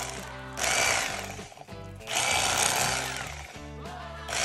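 Electric fillet knife buzzing as it cuts the wing section out of a walleye, running in two surges with a third starting near the end.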